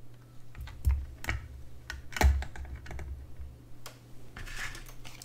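Scattered clicks and knocks of a 3D-printed plastic housing and circuit boards being handled and set down on a silicone work mat, about one a second, with a short rustle near the end.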